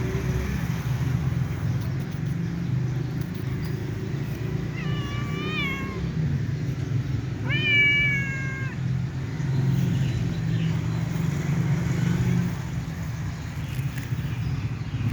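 A cat meowing twice, each meow about a second long, the second a few seconds after the first. A steady low rumble runs underneath.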